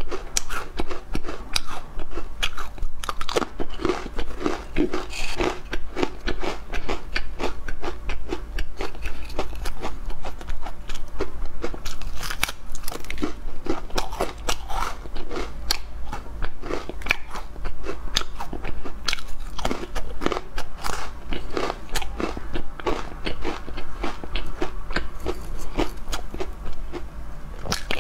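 Crisp seaweed crackers being bitten and chewed close to the microphone: a dense, steady run of sharp crunches.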